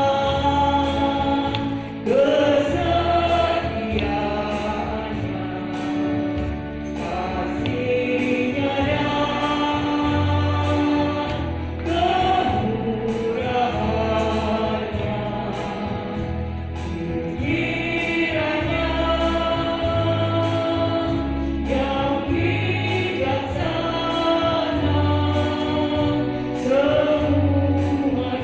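Women's choir singing together in held, sustained notes.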